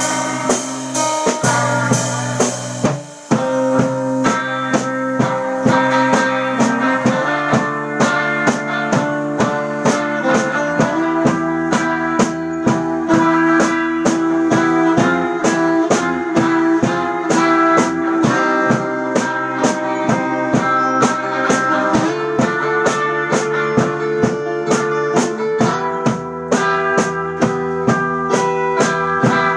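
Small surf-rock band playing an instrumental live: electric guitars over a steady drum-kit beat, with a short break about three seconds in.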